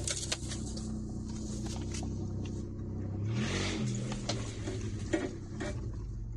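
2008 Mitsubishi Endeavor's V6 engine running at low speed, heard from inside the cabin, with knocks and rattles as it rolls over a bumpy dirt trail. A little past three seconds in, the engine revs up briefly and falls back, together with a short rush of hiss.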